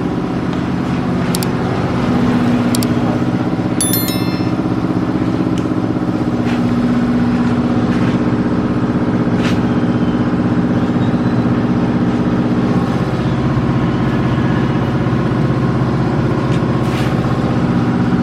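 An engine running steadily, with a few sharp metallic clinks on top, one of them ringing briefly.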